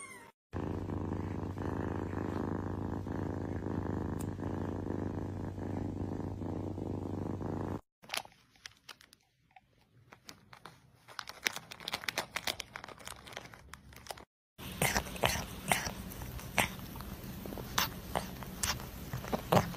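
A cat purring steadily for about seven seconds, cut off suddenly. After a quieter stretch of scattered soft clicks, a kitten eats with a quick run of sharp clicks and crunches.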